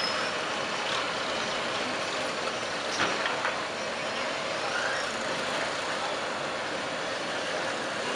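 Steady rushing, bubbling noise of a large aluminium pot of biryani masala at a rolling boil over a cooking fire. Water is poured in at the very start, and there is a light knock about three seconds in.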